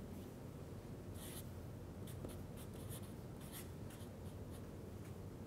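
Felt-tip marker writing on flip-chart paper: a series of short, faint, scratchy strokes over a low room hum.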